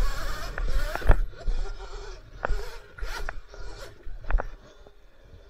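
Sur-Ron electric dirt bike ridden on a bumpy forest trail: the electric motor whines, the pitch wavering as the throttle changes, then a string of sharp knocks and rattles from the bike over about three seconds as it goes over roots and bumps, with a low rumble underneath.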